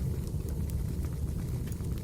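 Recorded wood fire burning: a steady low rumble with a few faint, sparse crackles and pops.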